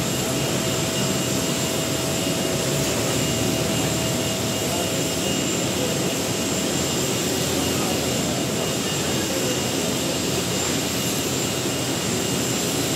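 Steady jet aircraft noise: an even rush with a constant high whine, unchanging throughout.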